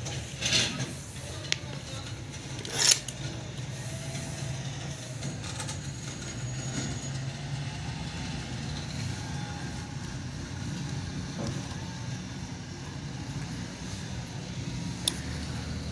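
Plastic robot-vacuum housing being handled during disassembly: a few short clicks and knocks over a steady low hum, three near the start and one near the end.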